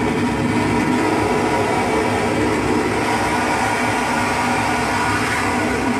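Live electronic noise music played on a table of effects pedals and a mixer: a loud, steady, dense droning wall of noise with a few held tones running through it.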